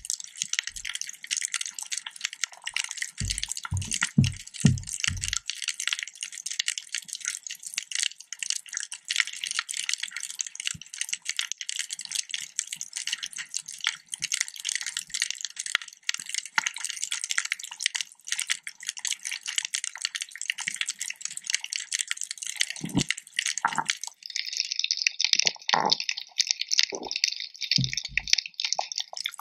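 Underwater reef sound: a dense, high crackling, with short runs of low thuds about three to five seconds in and again near the end.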